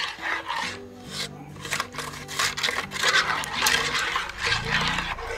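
Steel spoon scraping against the bottom and sides of a metal pot in quick repeated strokes, stirring ground sugar into bael fruit juice.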